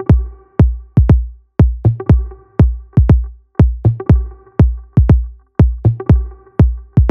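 Background music with a heavy kick drum about twice a second under a sustained chord.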